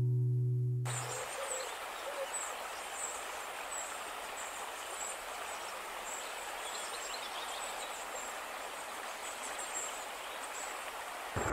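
Guitar music ends about a second in. After it, outdoor river ambience: a steady hiss of running water with high chirps of small birds over it.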